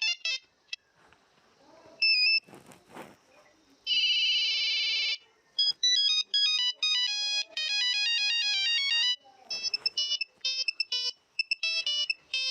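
Classic Nokia 1100 monophonic ringtones, several short beeping melodies played one after another. A melody ends in the first second and a brief two-note chirp follows. About four seconds in a steady buzzing tone lasts just over a second, then comes a fast run of stepping notes and, near the end, another quick beeping tune.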